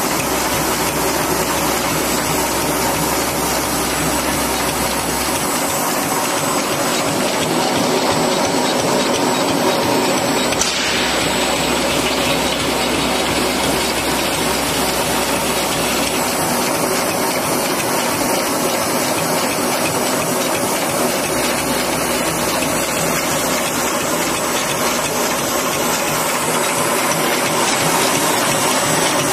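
Automatic desiccant packing machine running: bowl feeders and packing mechanism give a steady, dense mechanical rattle and clatter. A low hum cuts in and out every few seconds.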